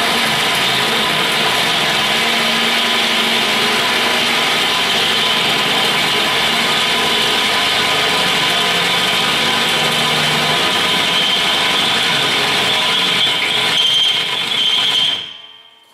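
Drill press boring a hole through a steel mounting plate with a twist bit: a loud, steady drilling noise of motor and cutting edge. A high squeal rises near the end, then the drill stops.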